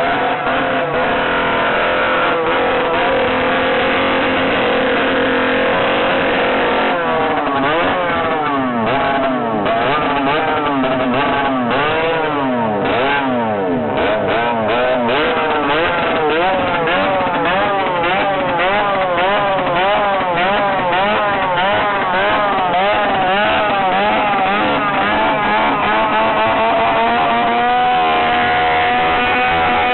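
Tuned two-stroke chainsaw running loudly at high revs, then its throttle blipped over and over so the pitch swings rapidly up and down, settling back to a steady high rev near the end.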